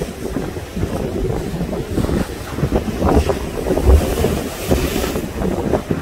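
Sea waves breaking over black volcanic rocks, with wind buffeting the microphone in a heavy, uneven rumble throughout. A brighter hiss of breaking surf swells about four seconds in.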